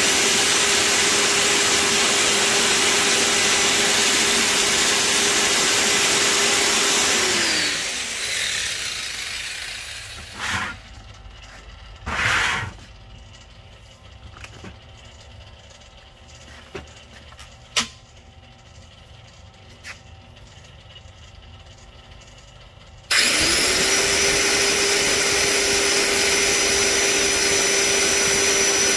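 Crankshaft polisher running an abrasive belt over the journals of a camshaft, a steady hiss with a motor whine. It winds down about seven seconds in, leaving a quiet stretch with a few knocks. It starts up again abruptly around twenty-three seconds in.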